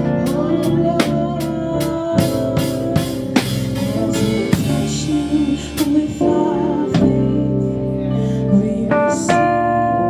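Live gospel band playing: a drum kit keeps a steady beat under sustained keyboard chords, with some singing over it.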